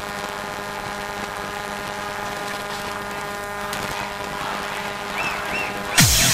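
Electronic dance-track intro: a steady sustained synth drone made of many held tones, then a sudden loud bass hit with a falling pitch about six seconds in as the beat drops.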